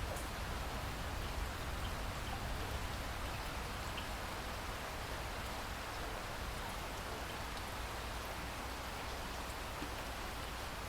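Steady rain falling: an even hiss with scattered small drop ticks. A low rumble dies away in the first second.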